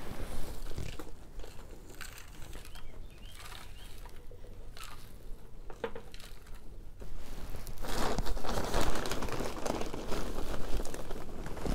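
Potting soil being scooped and spread by hand into a plastic seed tray: rustling and crinkling with small scrapes, louder in the last few seconds.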